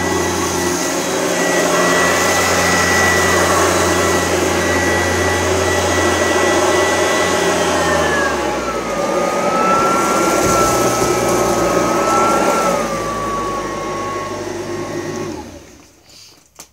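Oreck upright vacuum cleaner running with a steady high motor whine. About halfway through the pitch drops and settles lower, and near the end the motor is switched off and winds down.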